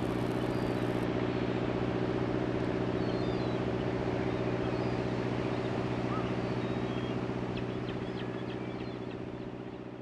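Small fishing boat's engine running with a steady, even drone over the sea's hiss, with a few faint high bird chirps; it all fades out near the end.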